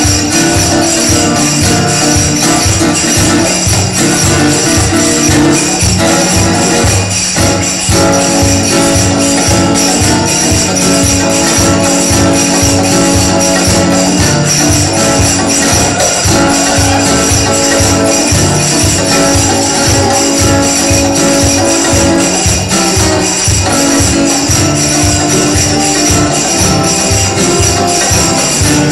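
Live band music with acoustic guitars, a steady, evenly repeating drum beat and a bright jingling tambourine over a held melody.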